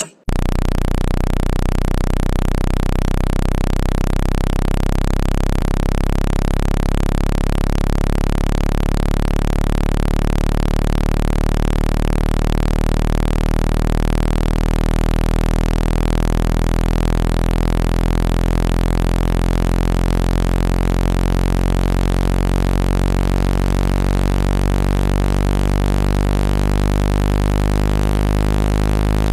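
A steady, loud low hum with a hiss above it, starting abruptly just after the beginning and holding unchanged throughout.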